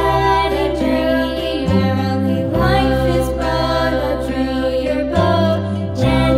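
Background music: a slow tune of long held notes over a steady sustained bass.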